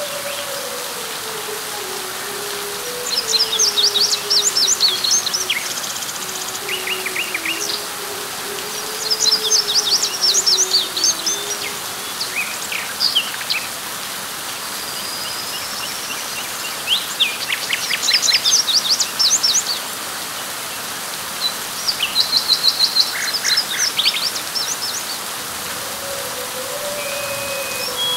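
Steady rain hiss with birds calling over it in four bursts of rapid, high chirps and trills, about 3, 9, 17 and 22 seconds in. A faint low wavering tone drifts under them during the first half.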